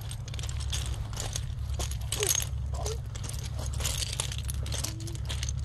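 Flat beach pebbles clinking and crunching underfoot as people walk over them, loose stones clattering against each other in a quick, irregular run of clicks.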